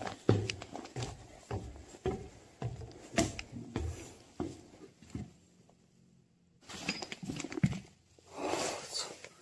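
Footsteps climbing wooden stairs and crossing a plank floor, about two heavy steps a second, stopping about halfway through. A few knocks and a brief rustle follow near the end.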